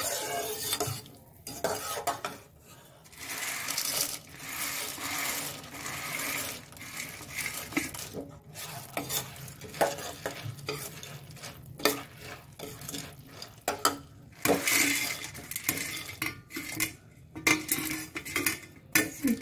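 Steel spoon stirring fried gram-flour boondi through warm sugar syrup in a steel pan, scraping and clinking irregularly against the metal.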